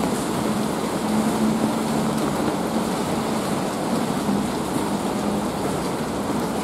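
Steady city rain falling, an even hiss of drops on surfaces, with a low hum underneath that wavers and fades out about five seconds in.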